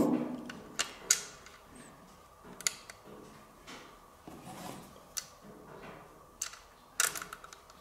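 Scattered light clicks and taps of small screws and a hard plastic drive tray being handled while a 2.5-inch SSD is screwed into the tray with a small screwdriver. A quick cluster of clicks comes near the end.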